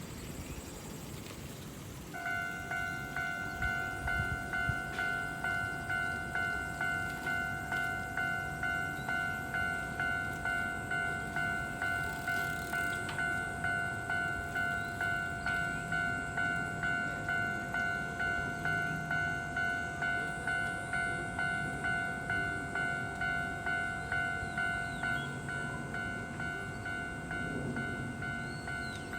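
Japanese railroad crossing warning bell starting up and ringing in a fast, even, repeating ding-ding, a little under two strikes a second. A lower steady tone under it stops near the end. The crossing is shared by JR and Ichibata trains, whose signals work differently.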